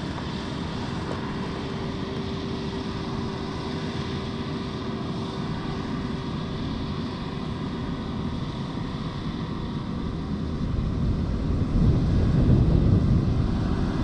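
Kubota DR6130SX combine harvester cutting and threshing rice: a steady diesel engine drone with a constant whine from the running machinery, and a louder low rumble near the end.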